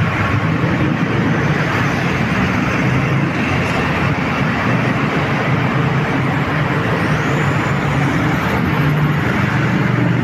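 Steady roadside traffic noise, with the low hum of a heavy vehicle's engine running underneath.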